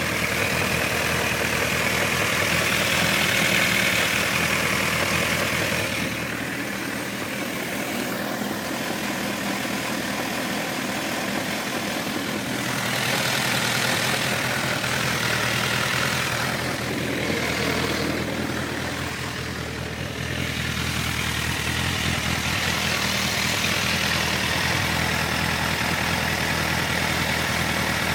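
Honda CBF 1000 F inline-four engine idling steadily. The owner reports a knocking noise from it, audible during the first seconds after starting. Its tone shifts a few times as the microphone is moved around the bike.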